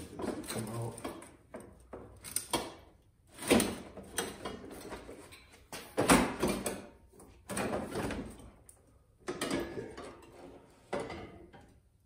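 A motorcycle's plastic outer fairing shell being worked loose and lifted off, making irregular knocks, bumps and scrapes against the bike. The sharpest knocks come about three and a half and six seconds in.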